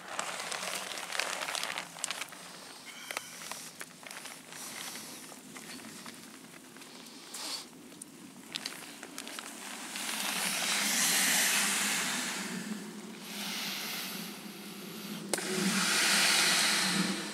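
The nylon shell of a SynMat inflatable sleeping mat rustles and crinkles as it is handled. About ten seconds in come two long breaths blown by mouth into its valve, each a rush of air that swells and fades, inflating the mat after a patch repair.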